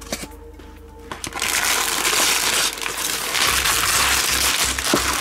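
Background music, joined about a second in by a loud, continuous crinkling noise that lasts to the end, with a pulsing low beat from about three and a half seconds in.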